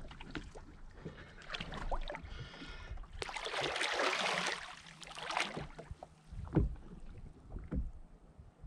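Water lapping and splashing against a stationary jet ski's hull as a person shifts on the seat, with a swell of louder splashing about three seconds in.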